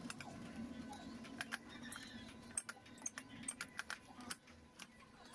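Irregular light clicks and taps of an amplifier module and its aluminium heatsink being handled and fitted back into the power amplifier's chassis, thickest in the middle of the stretch.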